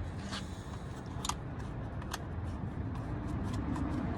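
A few short, sharp clicks as the window switch and door trim are handled, over a steady low hum.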